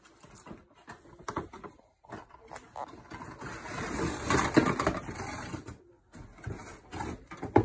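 Rustling and handling noise with scattered light knocks, and a longer stretch of louder rustling from about two to six seconds in.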